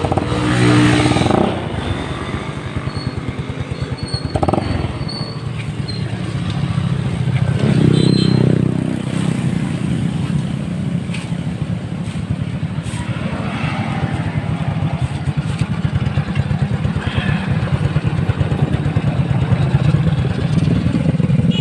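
Yamaha Mio Sporty scooter's single-cylinder four-stroke engine running through an aftermarket Hero racing pipe exhaust, idling with a steady pulse. It is revved up twice, briefly about a second in and again around eight seconds in.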